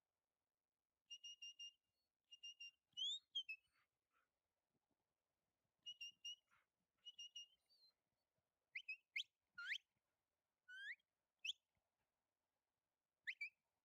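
Whistled herding commands to a working kelpie sheepdog. Short groups of quick, same-pitch pips come first, then several sharp upward-sweeping whistles in the second half.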